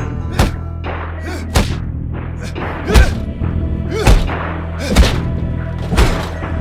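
Action-film fight soundtrack: heavy impact thuds about once a second, the deepest and loudest from about three seconds in, over film music with a steady low drone.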